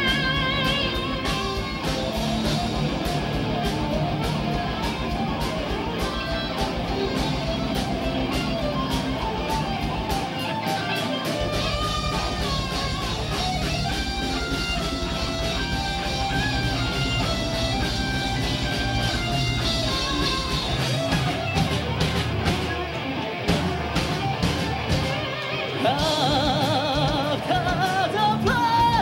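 A power/progressive metal band playing live: electric guitars, bass and drums with steady drum hits, mostly instrumental, and the lead singer's voice coming in about three seconds from the end.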